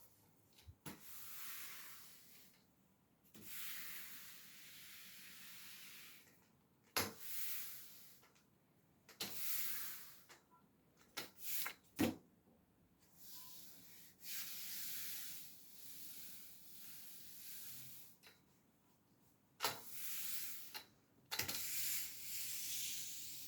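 Rubber-bristled broom sweeping a floor: a run of swishing strokes, each one to three seconds long with short pauses between, and a few sharp knocks along the way.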